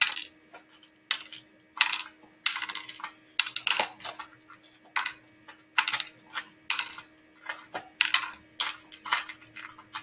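Dried beans dropping and clattering against clear plastic tubs as they are handled, a string of short, sharp, irregular clicks, one or two a second.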